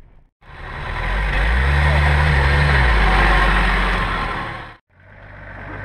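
Off-road 4x4's engine pulling under load as it drives up a steel car-trailer ramp, its note rising and holding for about a second before easing. After a short break near the end, an engine idles steadily.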